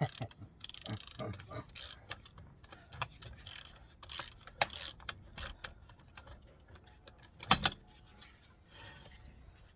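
Hand tools working the wheel nuts on a car hub: irregular metallic clicks, ratcheting and short scrapes of a socket wrench, with one louder metal knock about three-quarters of the way through.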